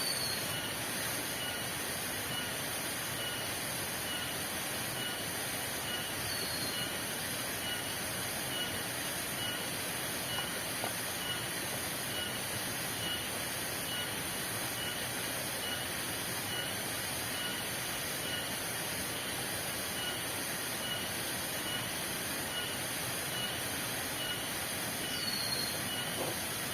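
Heavy rain falling steadily. Over it, a high steady trill, a faint chirp repeating about twice a second, and twice a short falling whistle.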